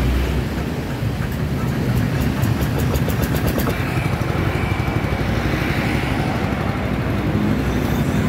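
Small single-cylinder engine of a two-wheeled hand tractor running steadily, with a fine rapid ticking in the first half.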